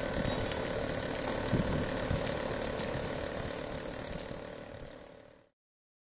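Small DC motor driving a homemade water pump, running with a steady hum. The sound fades out and drops to silence about five and a half seconds in.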